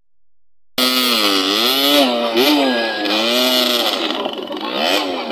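Single dirt-bike engine revved hard at high rpm, its pitch sweeping up and down again and again as the throttle is worked, with the rear wheel spinning in the dirt. The sound cuts in abruptly about a second in, after a silent gap.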